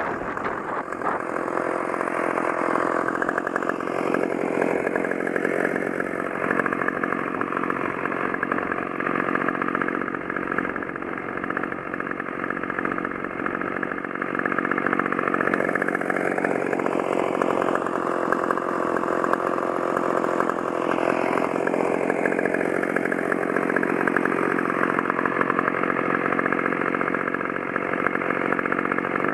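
Stihl two-stroke chainsaw running at high revs while cutting into the trunk of a dead ash tree, its engine note dipping and recovering several times as the bar bogs under load.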